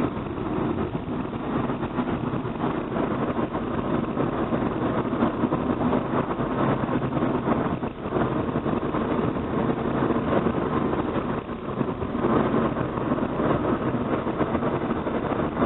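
Car being driven at road speed: steady engine, tyre and road noise, dipping briefly twice.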